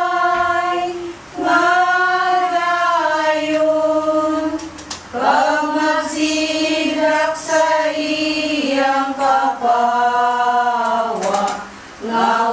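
A group of women singing a hymn together, holding long notes, with brief breaks between phrases.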